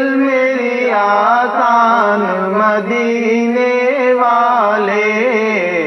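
Two male voices singing an Urdu naat together, unaccompanied, in long held notes with ornamented, sliding turns.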